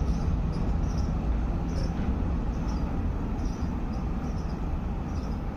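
Steady low rumble of a Peak Tram funicular car running on its rails, heard from on board, with a few faint high squeaks.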